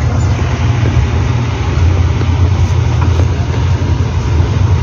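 A steady low mechanical rumble with a hiss over it, unchanging throughout.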